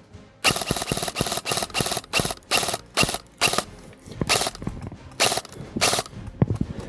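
Airsoft rifle firing a quick string of about a dozen sharp mechanical shots. They come about four a second at first and slow to a few spaced shots near the end.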